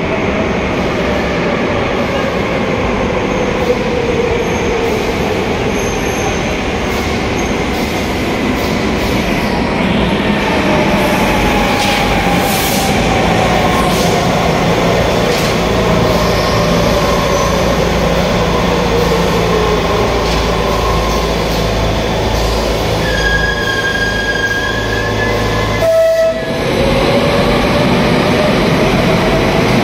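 Madrid Metro train arriving in an underground station: wheel-on-rail rumble with the motor whine falling steadily in pitch as it brakes. Near the end a steady high tone sounds for about two seconds, and after a brief break the whine rises again as a train pulls away.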